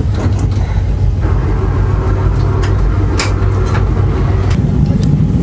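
BRDM-2 armoured scout car's GAZ-41 V8 petrol engine running steadily as the vehicle is driven, its note rising about four and a half seconds in. A short sharp click about three seconds in.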